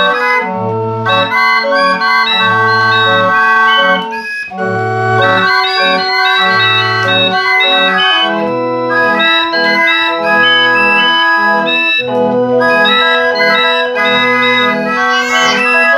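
Hand-cranked barrel organ made by Nechada of Odessa, playing a tune on its pipes. The melody runs over a repeating bass note and off-beat chords, with a short break between phrases about four seconds in.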